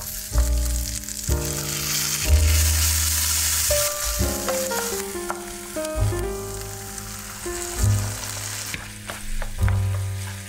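Diced potatoes, peppers and onion sizzling in oil in a nonstick frying pan, stirred with a wooden spatula. The sizzle is strongest in the first half and sits under background music with a melody and a strong bass.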